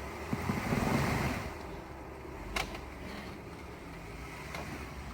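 Off-road Jeep's engine working under load as it climbs a rock ledge, with a loud burst of tyre and rock scrabbling about a second in, and a sharp knock about halfway through. The trail rock is greasy.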